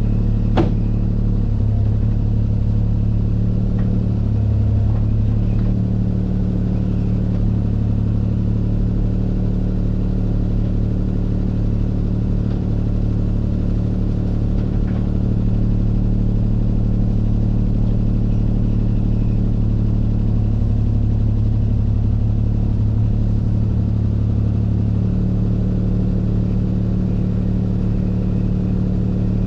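Diesel engine of compact earthmoving equipment running steadily with a low hum, the load rising and falling a little, with a couple of sharp clicks just after the start.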